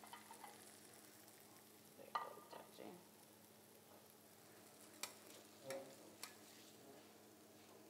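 Faint sizzle from a teppanyaki griddle with a steady low hum underneath. A metal spatula scrapes and clicks on the griddle a few times, about two seconds in and again between five and six and a half seconds in.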